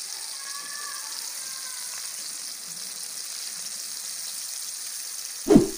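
Battered chicken pieces deep-frying in hot oil in a kadai, a steady sizzle. A brief louder sound comes near the end.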